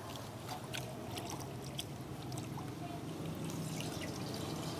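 Water pouring and trickling, with a few light clicks over it.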